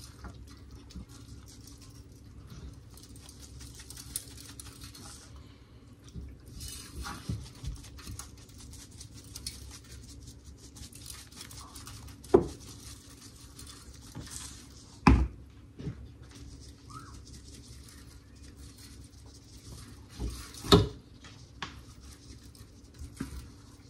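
Seasoning shaken out of a spice shaker jar onto a raw whole chicken in an air fryer basket: short bursts of light pattering, broken by a few sharp knocks.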